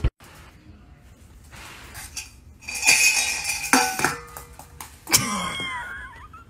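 Stainless steel dog food bowls clanking and ringing as a puppy gets into them, starting a few seconds in. A high, wavering cry follows near the end.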